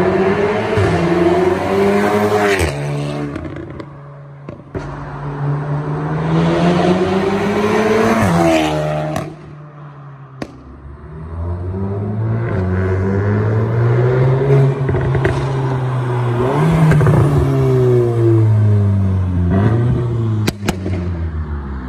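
Volkswagen Golf R's turbocharged four-cylinder through an Armytrix valved cat-back exhaust and APR downpipe, accelerating hard several times, its pitch climbing and then dropping sharply at each shift. A few sharp exhaust pops break in between the pulls.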